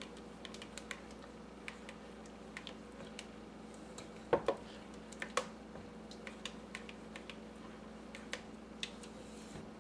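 Rubber spatula stirring thick pudding in a stainless steel pot, with scattered light clicks and taps as it scrapes and knocks against the pot's sides, the loudest a double knock about four and a half seconds in. A faint steady hum lies underneath.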